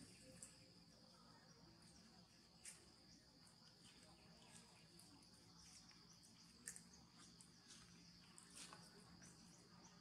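Faint forest ambience: a steady, high-pitched drone of insects, with a few brief high chirps.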